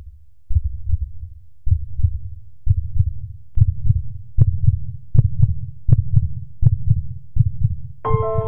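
Heartbeat-like sound effect: low thumps in clusters about once a second, quickening and getting louder. A sustained music chord comes in near the end.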